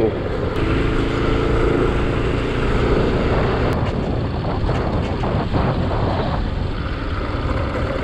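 Motorcycle engine running under way, mixed with steady wind and road noise on the bike-mounted microphone.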